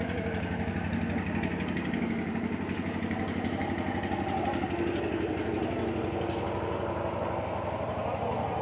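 A small engine running steadily with a fast, even pulsing beat, under faint voices.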